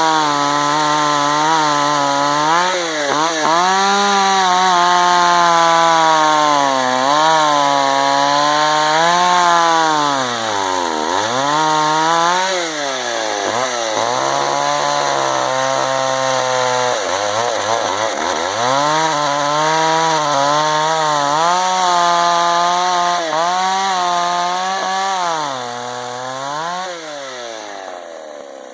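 Two-stroke chainsaw cutting wood, its engine speed dropping again and again as the chain loads up in the cut and climbing back up between dips. The sound fades out near the end.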